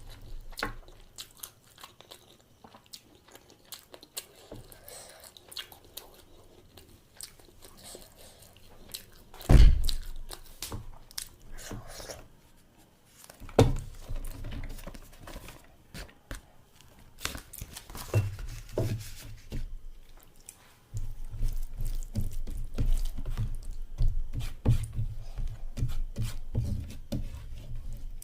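A person chewing and eating close to the microphone, with wet mouth clicks and some crunch. Two louder thumps come about a third of the way in and about halfway, and the chewing grows busier and closer near the end.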